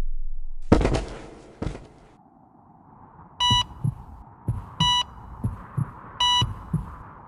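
Edited-in sound effects: two heavy impact hits about a second apart, then a slow heartbeat of paired low thumps with a short electronic heart-monitor beep about every second and a half.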